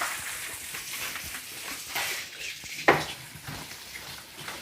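Spoon scraping and stirring in a cup of yeast and sugar, with one sharp clink of the spoon on the cup a little before three seconds in.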